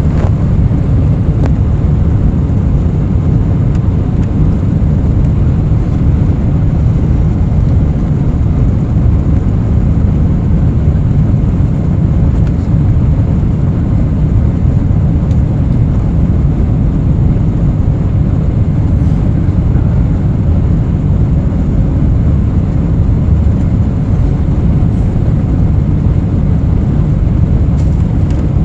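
Cabin noise of a Boeing 747-400 in its initial climb after takeoff: jet engines and rushing air heard through the cabin as a steady, loud low rumble.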